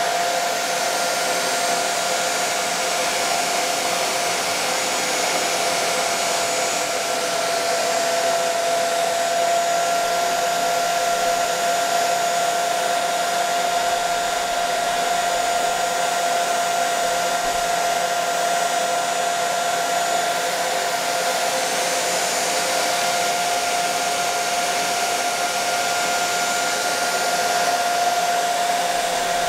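An 1875-watt handheld hair dryer running steadily, with a constant whine over the rush of air.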